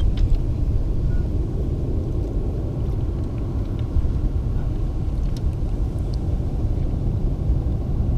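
Steady low rumble of open-air river-mouth ambience, with a few faint ticks.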